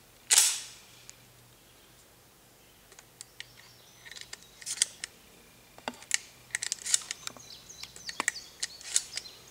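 Shotgun shells being loaded by hand into a Derya Lion Trap 12-gauge semi-automatic shotgun: a short scrape just after the start, then, after a pause, a run of small sharp clicks and snaps as the shells go into the magazine.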